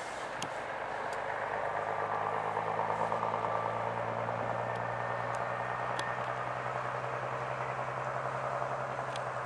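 Diesel engines of a vintage single-decker bus and a coach coming along the road, a steady low hum that grows a little louder as they approach.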